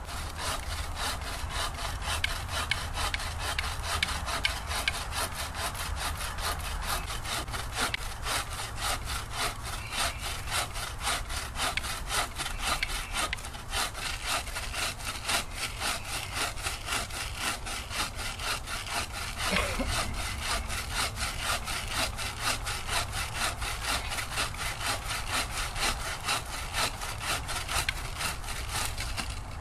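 Bucksaw with a 24-inch Fiskars blade in a homemade wooden frame cutting through a seasoned red oak log in steady, rhythmic back-and-forth strokes. The strokes stop just before the end.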